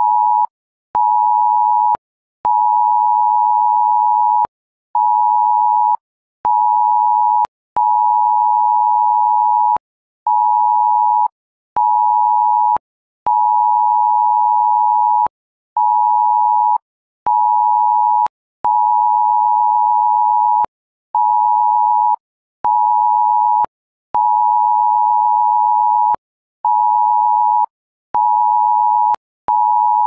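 Smartphone emergency cell-broadcast alert tone sounding for Germany's nationwide test warning. It is a steady two-pitch beep near 1 kHz in a repeating rhythm of one long tone of about two seconds followed by two shorter tones of about one second, with short gaps and a faint click at each start and stop.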